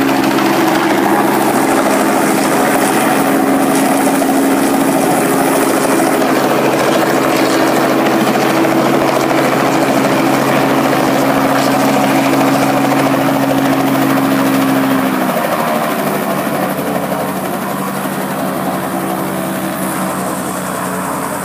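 Robinson R44 light helicopter hovering low and settling onto grass, its piston engine and rotor running steadily and loud. About 15 seconds in the engine note drops and it gets quieter as the engine is throttled back to idle after touchdown, rotor still turning.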